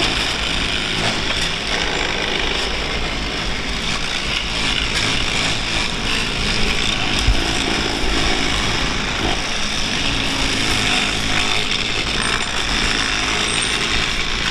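Engine-driven railway track maintenance machinery running steadily, a continuous mechanical noise over a low engine hum.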